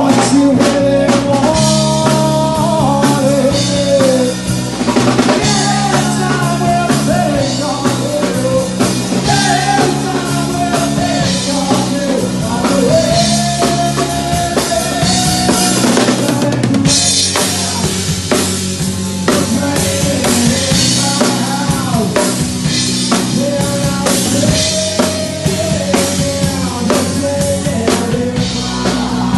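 Live rock band playing an instrumental passage, the drum kit (snare, kick and cymbals) loudest, with electric bass and a melodic lead line over it.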